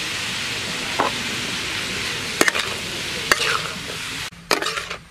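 Diced vegetables sizzling in a hot steel wok while a metal utensil stir-fries them, knocking and scraping against the wok a few times. The sizzle drops away suddenly near the end, leaving a couple of louder knocks.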